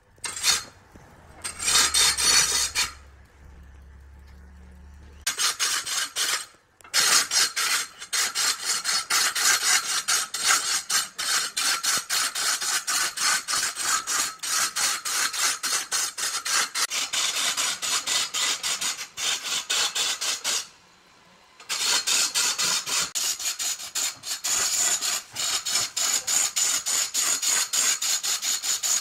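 Rapid, rhythmic rasping strokes of a hand tool worked back and forth on wood, with two brief pauses, about 3 seconds in and about 21 seconds in.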